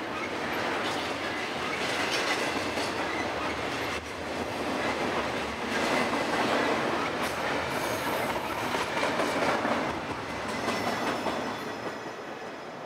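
Double-stack intermodal freight train's well cars rolling past, steel wheels clicking over the rail joints with a steady rumble. The sound fades near the end as the last cars pass.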